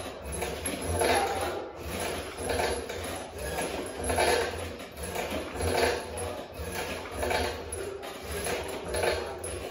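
A cable-and-pulley wrist-training rig worked in repetitions: a wrist cone handle pulls the metal cable over its pulley, which rasps and clinks with each stroke in a steady rhythm of about one stroke every 0.8 s.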